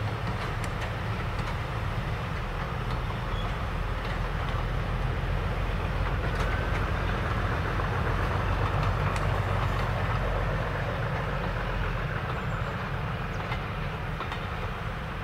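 Diesel locomotive and train running by, a heavy low rumble that grows louder toward the middle and eases off near the end.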